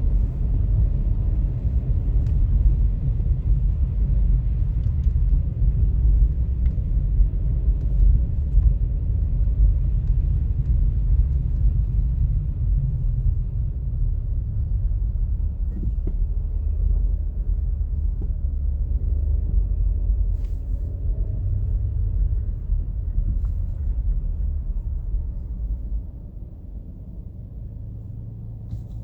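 Storm wind buffeting the microphone, a heavy, gusty low rumble. It eases noticeably near the end.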